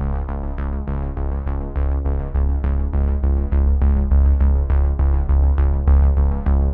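Electronic intro music with a fast, steady beat over a heavy bass line.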